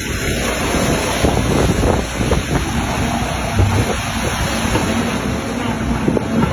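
Hitachi Zaxis excavator's diesel engine running with a steady rumble, mixed with wind buffeting the microphone.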